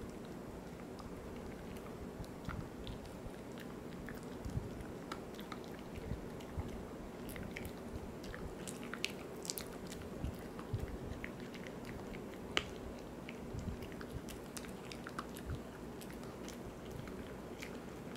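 Poodle chewing a Virbac C.E.T. VegiDent dental chew: irregular crunches and clicks of teeth on the chew, the sharpest crunch about two-thirds of the way through.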